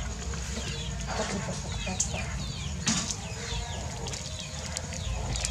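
Chopped garlic frying in a little hot oil in a wok, a steady soft sizzle, with a couple of sharp pops about two and three seconds in. Chickens or other birds call in the background throughout, in short chirping notes.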